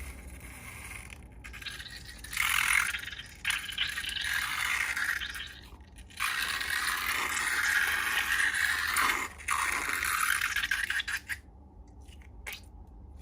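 Scraping and rustling from slime being handled, in two long stretches starting about two and six seconds in, followed by a few light clicks near the end.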